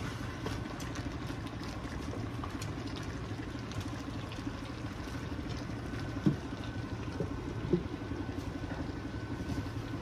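Chopped meat sizzling in a stainless skillet as a wooden spoon stirs it, over a steady low hum. There are two short knocks of the spoon on the pan, about six and a half and seven and a half seconds in.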